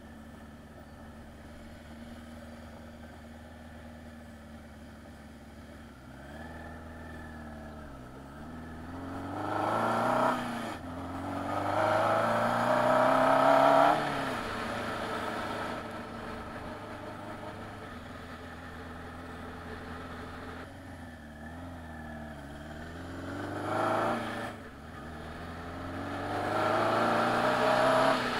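Motorcycle engine and exhaust pulling hard under throttle, the pitch climbing, dipping briefly as it shifts up, and climbing again. The loudest pull ends abruptly about halfway through when the throttle is closed, and a second pull builds near the end. In between, the engine runs at a lower, steadier note while cruising.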